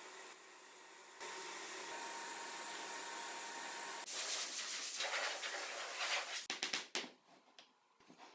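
Steady hissing noise from a workshop tool or blower, jumping louder twice as if cut together from separate clips, then breaking into a few short knocks and dropping away about seven seconds in.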